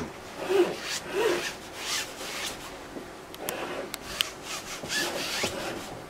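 Oil paint being worked onto a stretched canvas: a series of short rubbing and scraping strokes, with a few brief clicks midway.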